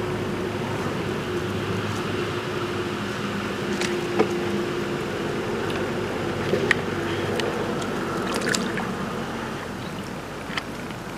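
Steady outdoor ambient hiss with a faint low hum, broken by a few small clicks and drip-like ticks, the sharpest about four seconds in and again near seven seconds.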